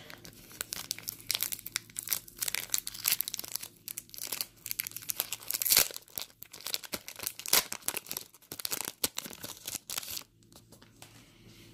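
A LEGO Create the World trading-card pack's wrapper being torn open and crinkled by hand: a quick, irregular run of rips and crackles that dies down near the end.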